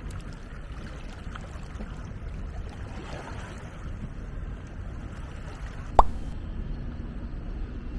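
River water lapping and plopping against a small plywood boat, over a steady low rumble of wind on the microphone, with one sharp click about six seconds in.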